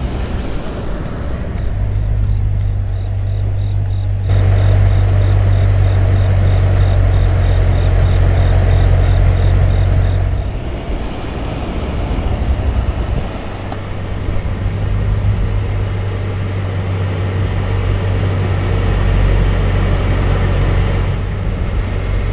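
Steady low rumble of road-vehicle noise, engine hum with tyre and road noise over it, which grows louder for several seconds and then eases. A faint high pulsing tone, about four pulses a second, runs through the first half.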